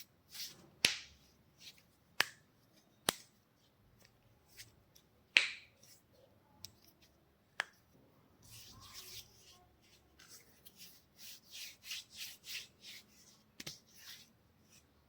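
Hands at work in a head and neck massage: a handful of sharp, single snaps a second or more apart, then rhythmic rubbing of hands over hair and skin in the second half.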